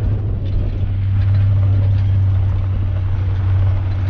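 Pickup truck driving along a dirt road: a steady low engine hum under continuous road and tyre noise.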